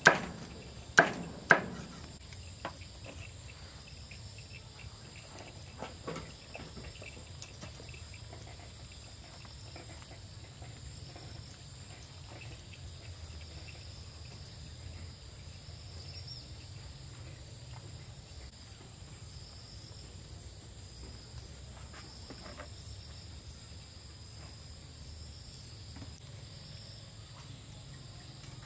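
Three sharp chopping knocks in the first two seconds, with a few fainter knocks a little later, over a steady high drone of insects.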